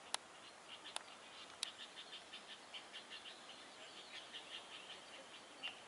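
Faint background chirping: short high notes repeating several times a second. Three sharp clicks fall in the first two seconds, the first the loudest.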